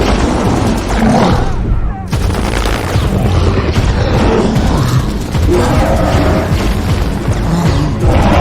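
Loud, dense movie battle sound mix: booms and crashing impacts over a music score, with no clear dialogue.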